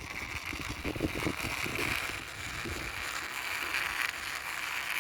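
Small toy car pushed along by hand, its wheels rolling with a steady rattling noise and a few light knocks in the first couple of seconds.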